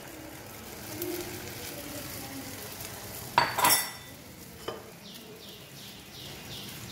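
Omelette egg sizzling gently in a buttered non-stick frying pan over a low gas flame, a steady soft hiss. About halfway through there is a short loud clatter of kitchenware, and a single click a second later.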